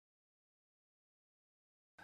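Silence: the audio track is empty, with faint room tone starting just at the very end.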